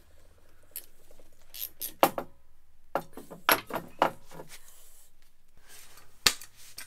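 Scattered metallic clinks and knocks of steel scooter fork tube and handlebar parts being handled and fitted together: a couple about two seconds in, a cluster around three to four seconds, and the sharpest single knock near the end.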